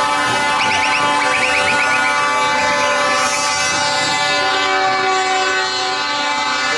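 Several truck air horns blaring together in a loud, sustained chord.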